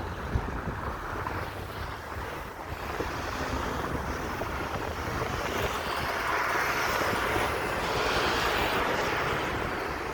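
Wind rushing on the microphone over the wash of the sea, swelling a little louder past the middle.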